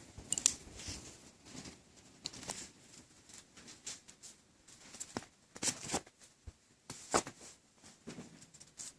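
Scattered light clicks and rustling as small pocket gear, a folding knife among it, is handled, with a few sharper clicks about five and seven seconds in.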